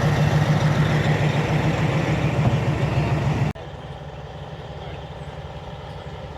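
A heavy diesel vehicle engine running steadily under way, with a strong low drone. About three and a half seconds in it drops suddenly to a quieter, steady engine sound.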